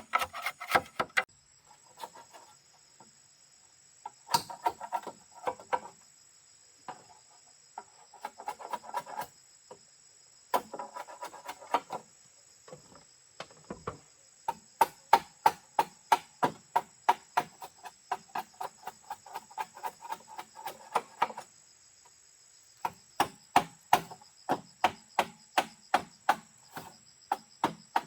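Wood being struck in quick runs of sharp, ringing blows, about three a second, with pauses between runs. Insects keep up a steady high buzz throughout.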